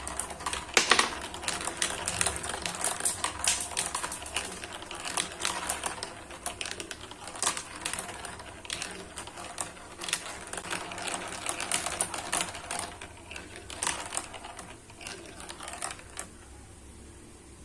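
Marbles rolling and clacking down a marble-run track, a dense, irregular clatter of small clicks that thins out near the end.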